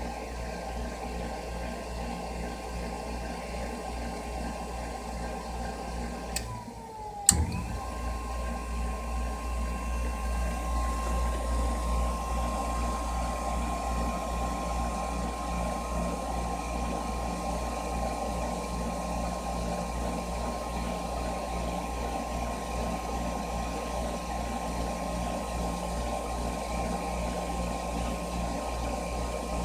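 Furnace running with a steady hum and a thin whine. About six seconds in, the sound drops out for under a second, then a single sharp click comes and the running resumes.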